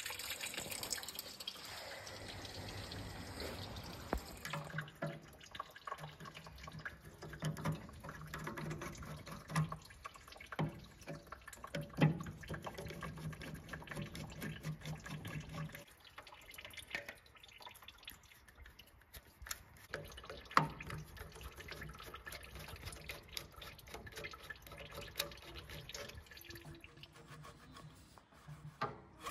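Coolant trickling and dripping as it drains out of a Ford GPW jeep's engine block. About five seconds in, the trickle drops away and light metallic clicks follow as a screwdriver works the clamps on the upper radiator hose.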